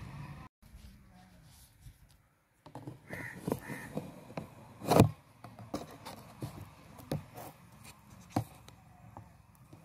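Whiteboard being wiped with a cloth duster and handled: scattered knocks and rubbing, the loudest knock about five seconds in, with two short harsh calls a little after three seconds.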